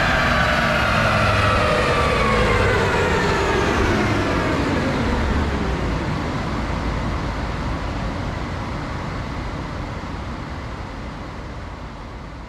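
2019 BMW M5 Competition's twin-turbo V8 and drivetrain coasting down on a chassis dyno after a full-throttle pull. The pitch falls steadily over the first five seconds or so, then a steady rumble slowly dies away.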